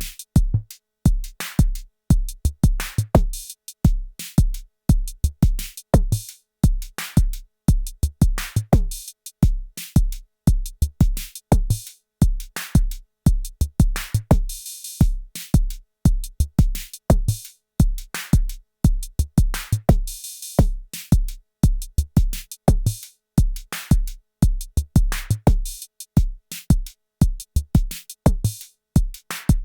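Arturia DrumBrute Impact analog drum machine playing a sequenced beat: a steady deep kick drum pulse under sharp clicky percussion hits. Two longer hissing cymbal-like hits come about halfway through and again a few seconds later.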